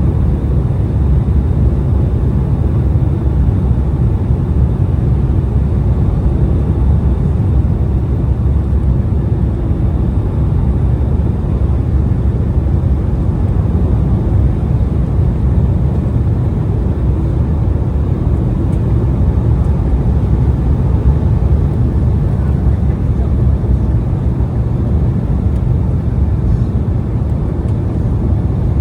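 Steady cabin noise inside an Embraer E175 regional jet: an even low rumble of its jet engines and airflow past the fuselage.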